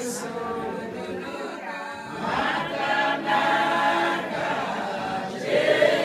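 A group of voices singing a Shona gospel song together, unaccompanied.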